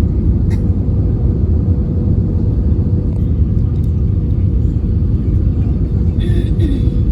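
Airliner cabin noise during landing: a steady low rumble of engines and airflow with a constant hum.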